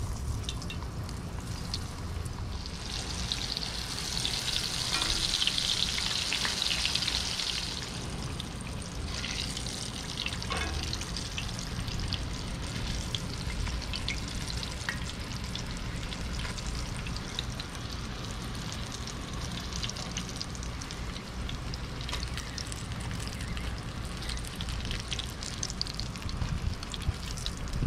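Battered fish nuggets frying in hot oil in a cast-iron skillet: a steady sizzle that swells louder for about four seconds, starting about three seconds in, as a fresh batch cooks. Light clicks of metal tongs come now and then as pieces are handled.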